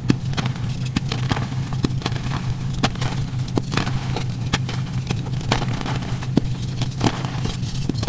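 Blocks of gym chalk (magnesium carbonate) crunching and crumbling as hands squeeze and break them over loose chalk powder: a dense run of sharp, irregular crackles and crunches, played sped up.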